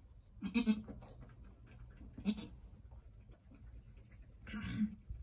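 Angora goat doe giving three short, low, quiet calls about two seconds apart, the soft calls a doe makes to her newborn kids just after kidding.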